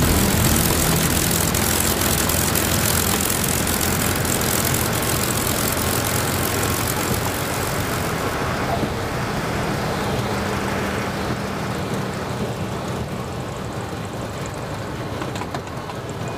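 Cockpit sound of a P-51D Mustang's Packard Merlin V12 at low power, with rushing air, during the landing and three-point touchdown. It gradually gets quieter, and the airflow hiss fades from about halfway through as the aircraft slows.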